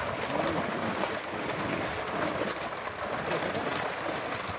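Large rohu thrashing in a drawn-up fishing net, a steady, dense splashing and spraying of water.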